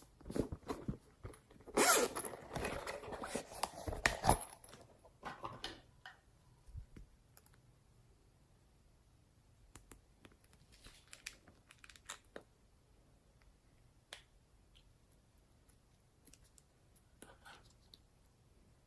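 Slime being squeezed and stretched by hand, giving a dense crackling and popping for a few seconds near the start, then only scattered small pops and clicks.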